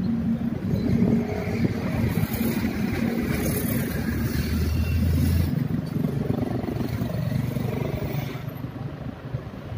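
Road traffic: vehicles driving past with engine hum and tyre rush. One passes close around the middle, and the sound eases near the end.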